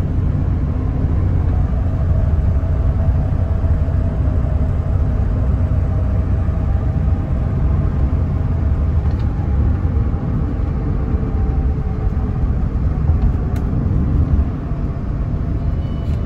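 Steady low rumble of road and engine noise inside the cabin of a 1986 BMW 325e cruising on the highway, its 2.7-litre straight-six running under light load.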